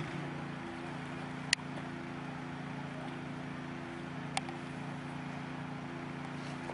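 A steady low motor hum, with two sharp clicks, the first about a second and a half in and the second a few seconds later.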